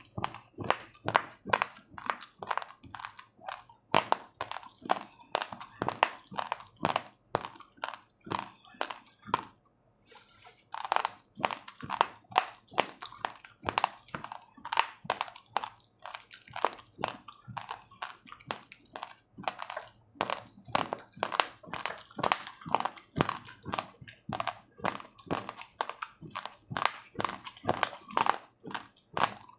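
Raw, uncooked rice grains being chewed and crunched between the teeth: a run of sharp, irregular crunches, a few a second, with a short pause about ten seconds in.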